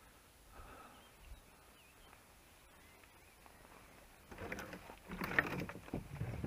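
Faint, scattered bird chirps over quiet outdoor ambience, then, about four seconds in, a louder stretch of irregular rustling and clattering.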